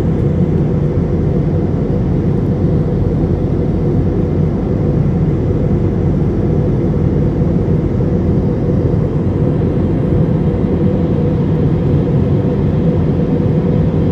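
Jet airliner's engines and rushing airflow heard from inside the passenger cabin during flight: a steady, low, unbroken noise with a faint steady hum in it.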